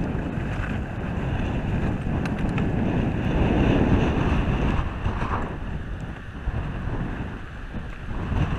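Wind buffeting a camera microphone while skiing downhill, with skis hissing and scraping over packed snow. The rush swells midway through the run and eases as the skier slows near the end.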